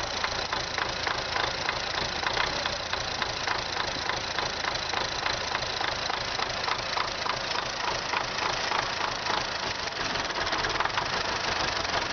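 MTZ (Belarus) tractor diesel engine idling with a regular knock that repeats several times a second, the engine knock that is the fault under investigation.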